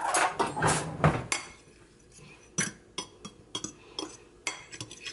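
A spoon scraping and clinking against a ceramic dish while almond-flour breading and spices are stirred together. A run of separate sharp clinks comes in the second half.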